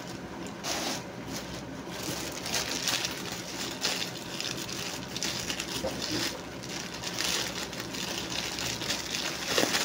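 Thin plastic courier mailer bag crinkling and rustling continuously as it is handled and pulled open by hand.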